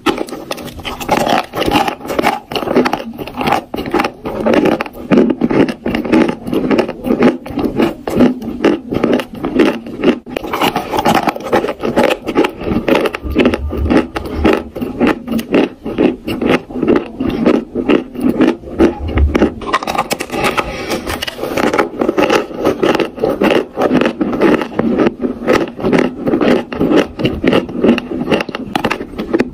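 Dry chalk being bitten and chewed close to the microphone: a rapid, unbroken run of crisp crunches as the chalk breaks up in the mouth.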